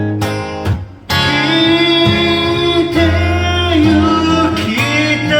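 Music: a Japanese folk ballad with acoustic guitar accompaniment. About a second in, a long held melody note begins, wavering in pitch, and it drops lower partway through.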